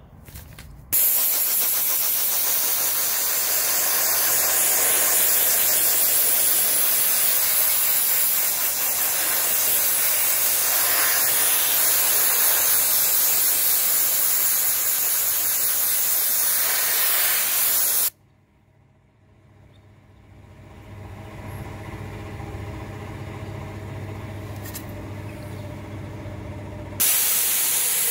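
Soda blaster gun spraying bicarbonate soda with compressed air: a loud steady hiss that cuts off suddenly about 18 seconds in. In the pause a quieter steady hum from the air compressor's motor builds up, and the blasting hiss starts again about a second before the end.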